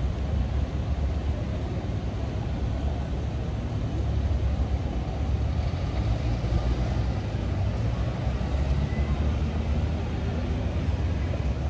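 Steady low rumble of a moving vehicle, even throughout.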